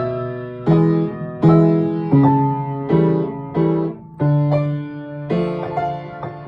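Piano duet: chords struck at a steady pace, about every two-thirds of a second, each one ringing and fading before the next.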